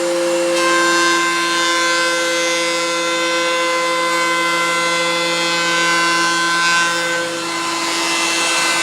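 DeWalt electric planer running with a steady, loud motor whine. From about half a second in until about seven seconds, a set of higher tones joins the whine, then drops away.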